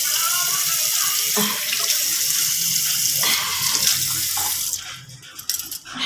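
Water running steadily from a tap into a sink, stopping abruptly about five seconds in.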